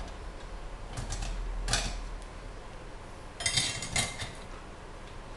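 Metal parts of a pressure lantern clinking and rattling as it is put back together, in short bursts: one about a second in, a louder one a little later, and a cluster of clinks around three and a half to four seconds.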